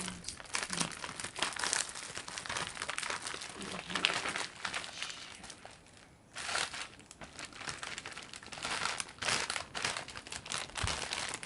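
Crinkling and rustling as a squishy toy is handled, pausing briefly about six seconds in.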